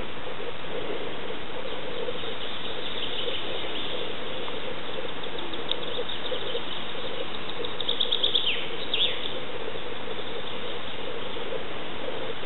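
Outdoor ambience of birds chirping over a steady hiss, with a quick run of high chirps and two downward-sliding notes about eight seconds in.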